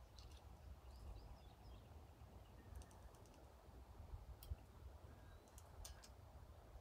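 Faint, scattered clicks of a Lee hand press and aluminum 9mm cases being handled, over a low outdoor background rumble.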